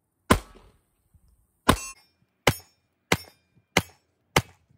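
Six shots from a compact semi-automatic pistol. The first two are about a second and a half apart, and the rest follow a little over half a second apart.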